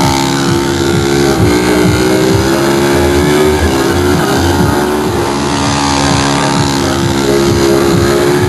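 Loud music played through a car's competition sound system, steady and sustained.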